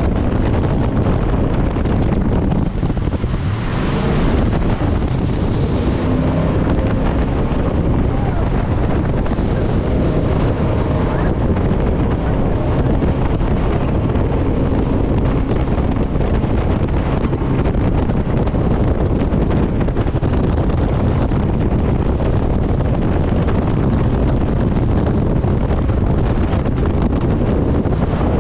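Jet boat running at speed on a river, its engine and water jet noise under heavy wind buffeting on the microphone, steady throughout, with a brief surge of hiss about four seconds in.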